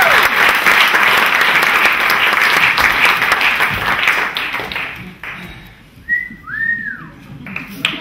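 Theatre audience applauding, the clapping thinning out and dying away about five seconds in. About six seconds in comes a short whistle that rises and falls.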